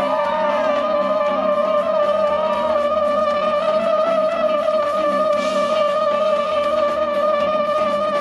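Trumpet holding one long, steady high note without a break.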